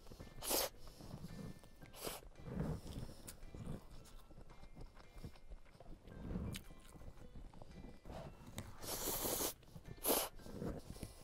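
Close-up slurping and chewing of stir-fried noodles. There are sharp slurps about half a second and two seconds in, a longer slurp near nine seconds and another just after ten, with soft chewing in between.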